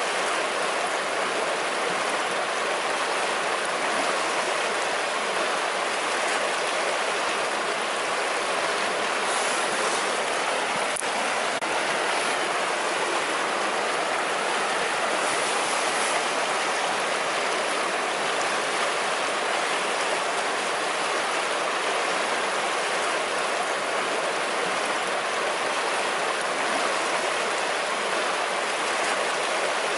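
River flowing: a steady, even rush of water.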